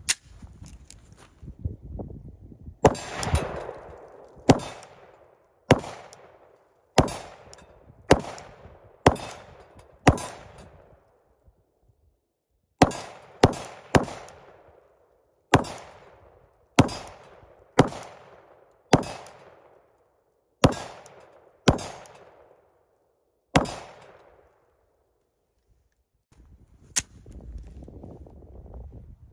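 Glock 17 9mm pistol firing at AR500 steel targets: about eighteen single shots at a steady, unhurried pace of roughly one a second, with a pause near the middle. Most shots are followed by the ringing clang of a steel plate being hit.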